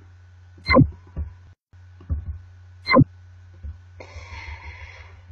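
Two sharp knocks about two seconds apart and a few fainter taps, over a steady low hum. A soft hiss comes in about four seconds in.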